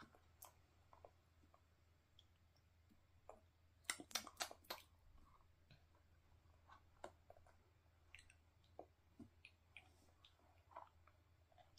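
Faint, scattered small clicks and smacks of a baby eating puree from a plastic spoon, with a quick run of louder clicks about four seconds in.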